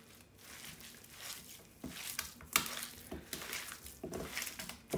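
Hand kneading and squeezing raw lamb mince mixed with ghee, herbs and spices in a stainless steel bowl: irregular wet squishing strokes that grow louder about two seconds in, with one sharp click about halfway.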